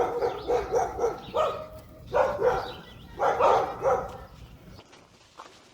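A dog barking repeatedly, a string of short barks over about four seconds, over a low steady rumble that stops near the end.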